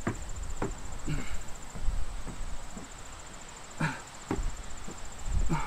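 A cricket trilling steadily at a high pitch. Over it come a man's short breaths and soft knocks as his hands walk out and back on a wooden deck in a plank.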